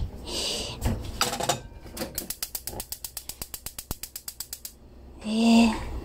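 Gas stove igniter clicking rapidly and evenly, about ten clicks a second for some two and a half seconds, as a burner is lit. Light rustling comes before it.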